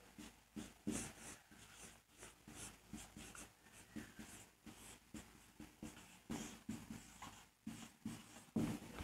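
Faint, irregular strokes of handwriting, a pen or marker scratching and tapping as words are written out.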